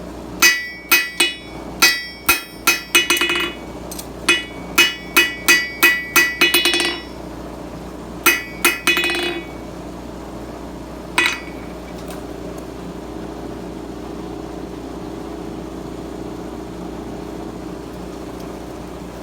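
Blacksmith's hammer striking steel on an anvil: two quick runs of ringing blows at about two to three a second, a few more blows, and one last strike about eleven seconds in. After that only a steady background hiss is left.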